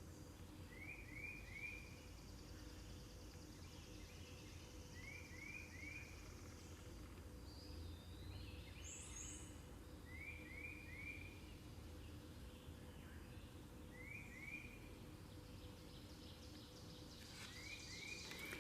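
Faint outdoor ambience: a songbird repeats a short phrase of three quick rising notes about every four seconds, with one brief higher double call about halfway through, over a low steady hum.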